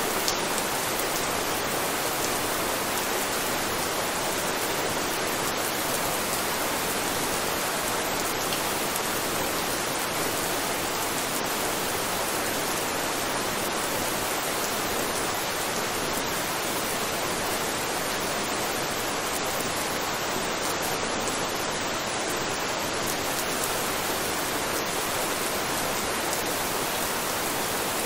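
Steady rain, an even hiss with no single drops, thunder or other events standing out.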